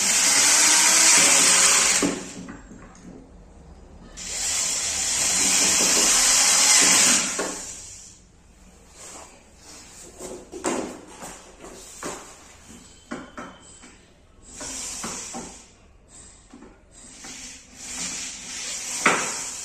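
Cordless power drill driving screws into a wooden bed frame in two long runs, the loudest sound. Knocks and clicks of the frame parts being handled follow, then two shorter drill runs near the end.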